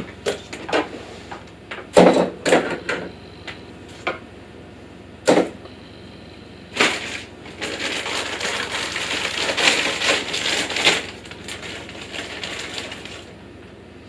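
Hard plastic parts knocking and clacking several times, loudest about two seconds in, then a thin plastic bag rustling and crinkling for about five seconds as small plastic castor wheels are taken out of it.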